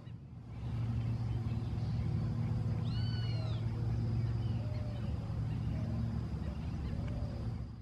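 Piston engine and propeller of a low-flying agricultural crop-duster plane, a steady drone that comes in under a second in and holds. A brief high arched call sounds over it about three seconds in.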